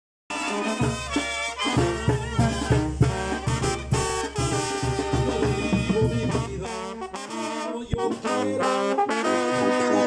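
Mexican banda brass band playing live, trumpets and trombones carrying the tune over a pulsing bass and beat. The music starts suddenly just after the beginning, and the low bass drops out about seven seconds in, leaving the brass.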